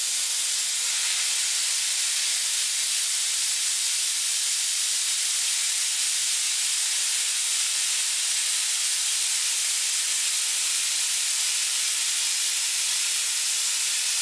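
Everlast Power Plasma 50 plasma cutter torch cutting through roughly 1/8-inch steel plate on its pilot arc, with the ground clamp not attached to the work: a loud, steady hiss of air and arc.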